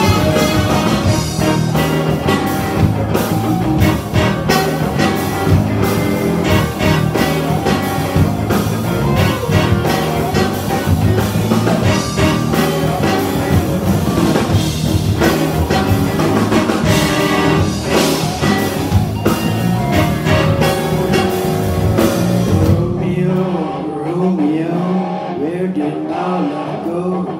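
Live rock band with saxophones, electric guitars, bass, keyboards and drums playing an instrumental passage, loud and dense with drums and cymbals. About 23 seconds in the drums and cymbals drop out, leaving a sparser part with bass and guitar lines.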